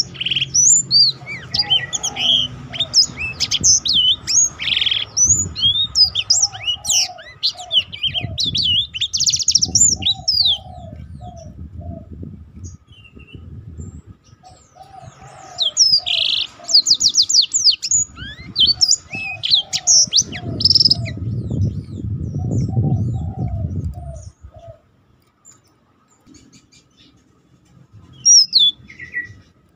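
Black-throated canary (blackthroat) singing in long rolling runs of rapid, high twittering and trilled notes, in several bursts with a short pause near the end.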